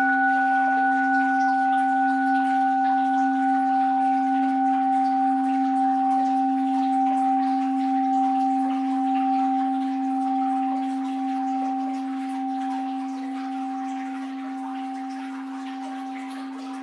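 An orin, a Japanese Buddhist bowl bell, rings out after a single strike. Its low tone and two higher tones die away slowly, the loudness wavering gently as it fades.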